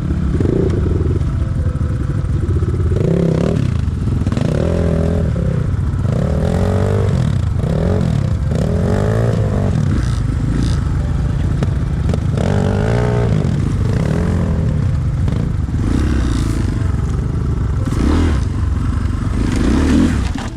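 Single-cylinder enduro motorcycle engine being ridden off-road, its revs rising and falling again and again every second or so as the throttle is worked.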